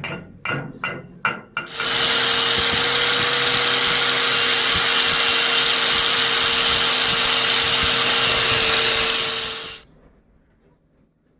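Several quick hammer strikes, then an angle grinder runs steadily with a held motor whine for about eight seconds, working on the weld metal, and cuts off near the end.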